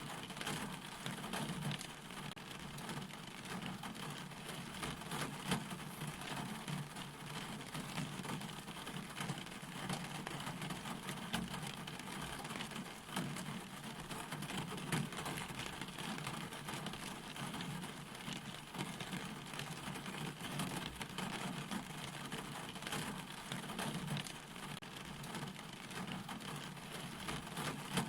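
Steady rain falling, with many individual drops pattering on a surface.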